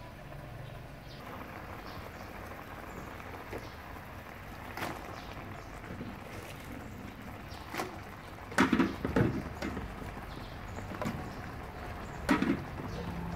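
Water spinach stems stir-frying in a metal wok: a steady sizzle, with a metal ladle knocking and scraping against the wok several times. The loudest cluster of knocks comes about two-thirds of the way through, with another near the end.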